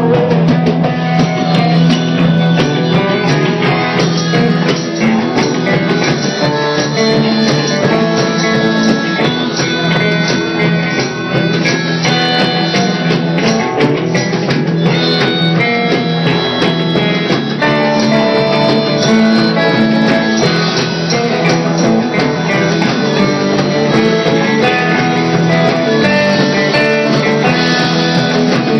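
A live rock band playing an instrumental passage, led by guitar.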